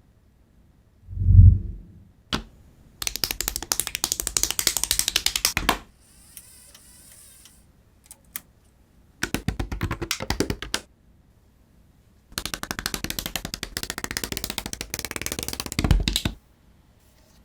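Runs of rapid, dense mechanical clicking, three in all, with a low thud about a second in, a short hiss between the first two runs, and another low thud near the end.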